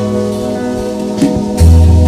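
Background instrumental music with guitar over a sustained bass line; a lower bass note comes in about one and a half seconds in.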